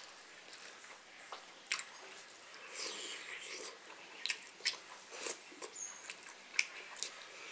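A person chewing food close to the microphone, with irregular wet mouth clicks.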